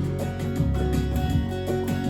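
Guitar strummed in a steady rhythm, playing the accompaniment of a country-folk song between sung lines.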